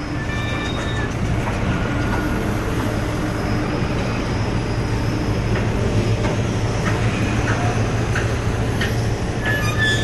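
Heavy machinery running with a steady, noisy rumble and a low hum, with occasional faint knocks. Short beeps sound in the first second, and a steady high-pitched tone starts near the end.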